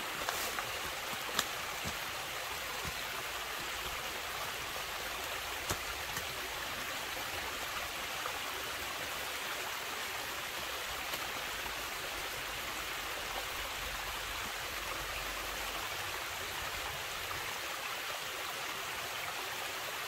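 Mountain stream running steadily, with a few brief sharp knocks in the first seconds and once around six seconds in.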